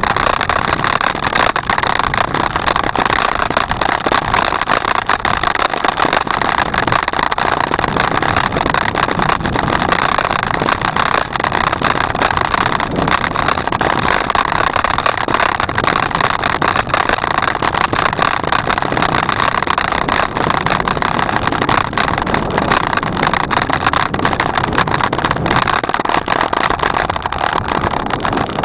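Steady rushing noise of a bicycle on the move: wind blowing across the microphone, mixed with tyre and road noise, without let-up.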